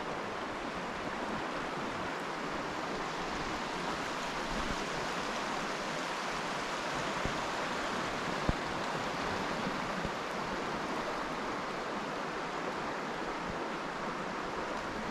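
Steady rush of flowing river water, with one short tick about eight and a half seconds in.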